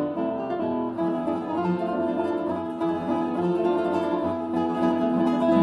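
Background music played on plucked string instruments such as acoustic guitar, with a steady run of notes.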